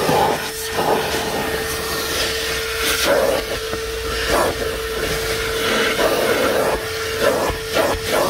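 DeWalt 9-gallon, 5 hp wet/dry shop vacuum running, with a steady motor whine under the rush of air. The suction noise surges and drops irregularly as the nozzle is worked around.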